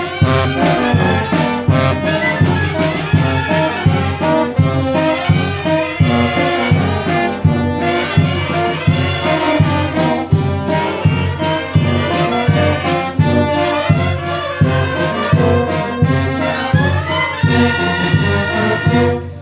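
Mexican wind band (banda de viento) playing a lively tune: sousaphone and snare drum keeping a steady beat under saxophones, clarinets and brass.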